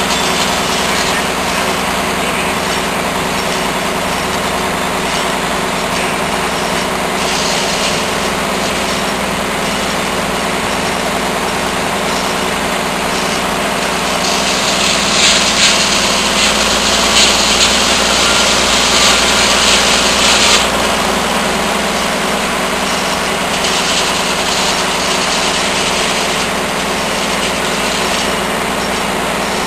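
Murphy diesel engine running steadily as it powers a sawmill. From about halfway through, for some six seconds, a louder high hiss rises over it as the saw blade cuts through wood.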